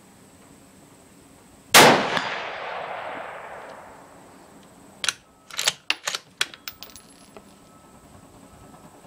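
A single rifle shot from a bolt-action Ruger Precision Rifle in .243 Winchester: one sharp crack whose echo dies away over about two seconds. A few seconds later comes a quick run of metallic clicks and clacks, the bolt being worked to eject the spent case and chamber the next round.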